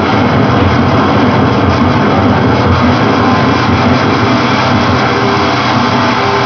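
Loud, steady wall of electronic noise music, with a dense low rumble under a hiss that fills the whole range.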